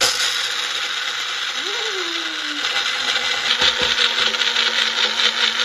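Magic Bullet personal blender grinding dry puppy kibble into powder. It switches on abruptly as the cup is pressed down and runs steadily.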